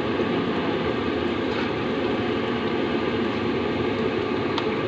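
Steady rushing noise of a wok of rice-noodle broth simmering over a stove burner, with a couple of faint light clicks of the metal spatula against the wok.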